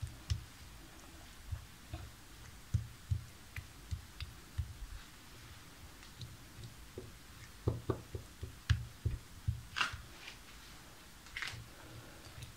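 Metal fork scraping and tapping against a ceramic plate while spreading sauce over fried zucchini: irregular soft clicks and low knocks, with a couple of sharper clicks near the end.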